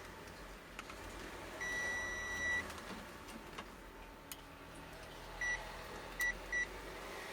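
Digital multimeter's continuity beeper sounding while its probes are put to the legs of components on a TV power board: one long, steady high beep, then three short beeps near the end, with faint clicks of the probe tips.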